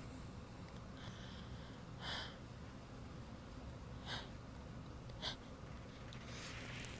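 A woman holding back a sneeze while trying to stay quiet: three short, sharp, muffled bursts of breath through the nose about two, four and five seconds in, the third the shortest.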